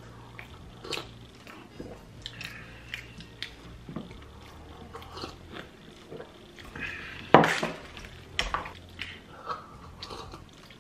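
Close-up eating sounds: chewing and mouth smacks with scattered light clicks of tableware, and one louder knock about seven seconds in.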